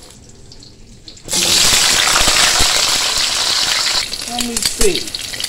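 Hot oil sizzling in frying pans as breaded fish fillets and cut potatoes fry. About a second in, the sizzle jumps to a loud, steady hiss; near the end it eases to a lighter crackle.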